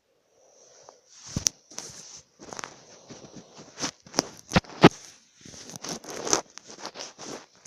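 A person snoring in irregular, rattling, crackly snorts, with a few sharp clicks among them.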